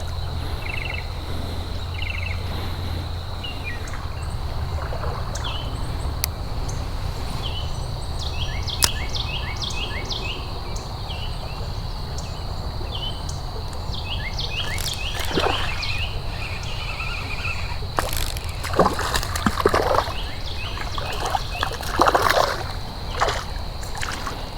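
Creek water sloshing and splashing, with a few louder splashes past the middle and near the end, over a steady high insect drone and repeated short chirps.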